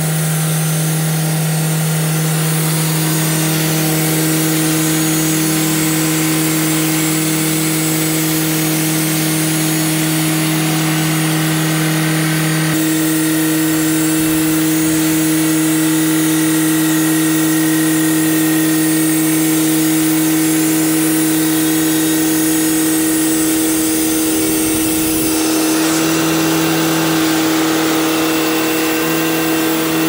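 Timberking 2000 sawmill's engine running at a steady speed, a constant hum with a hiss over it. The pitch steps slightly partway through, and the sound changes again later on.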